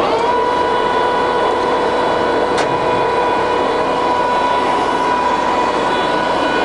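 Jessey Major 1860 centre lathe running in its lowest speed range, about 25 rpm, with a steady whine that rises into place as it starts. One faint click about two and a half seconds in.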